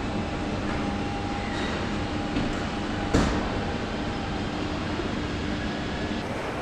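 Car assembly-line machinery noise: a steady rumble with a faint hum, and one sharp knock about three seconds in.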